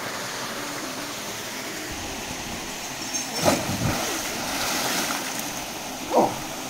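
Steady rush of a small waterfall pouring into a canyon pool. About three and a half seconds in, a person plunges into the pool with a big splash, and the water churns for a moment after. A short falling sound comes near the end.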